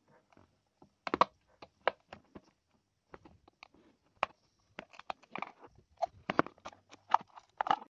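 Irregular clicks, taps and scrapes of a black motor speed controller's housing being handled and pried apart by hand as it is taken apart.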